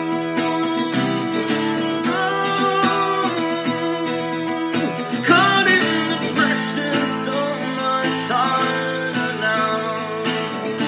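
Acoustic guitar strummed in a steady rhythm of sustained chords.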